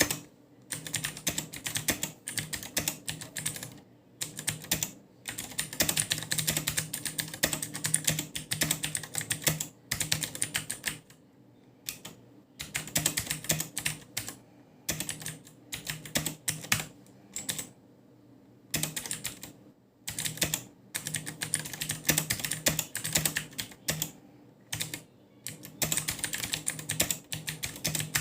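Typing on an Akko 3108 v2 mechanical keyboard with Akko blue (clicky) switches: fast runs of sharp key clicks in bursts, with short pauses between them.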